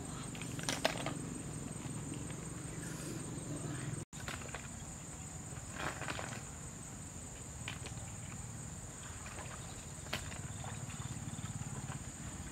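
Insects keeping up a steady high-pitched trill over a low rumble, with a few brief splashes and knocks, about a second in, halfway, near ten seconds and near the end, from hands working through a shallow stony stream bed.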